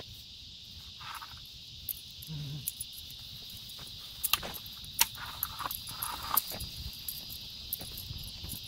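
Steady, high-pitched insect chorus, with scattered light clicks and steps throughout.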